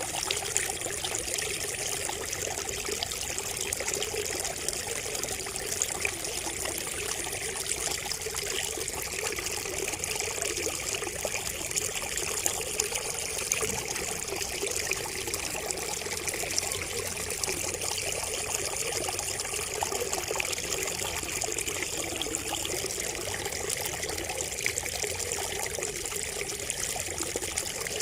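Water steadily trickling and splashing from a bamboo spout.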